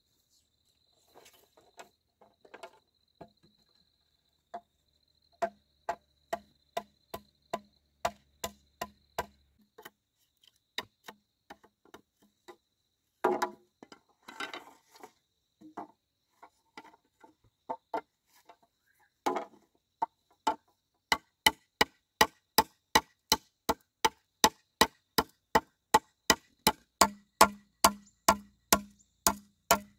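Repeated sharp chopping strikes of a blade on bamboo or wood, about two a second at first, then quicker and louder at about three a second from about two-thirds in.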